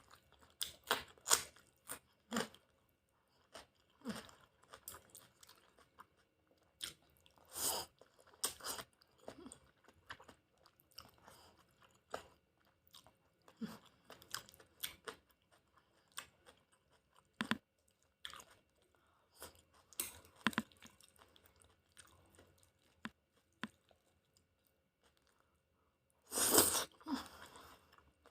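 A person eating chicken udon with mushrooms: chewing and mouth smacks in short, irregular clicks, with a louder burst of about a second near the end.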